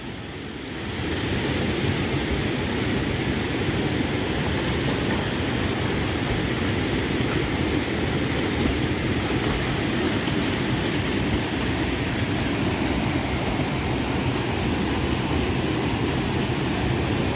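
Waterfall rushing steadily, water pouring into the pool below as one continuous noise that swells up about a second in.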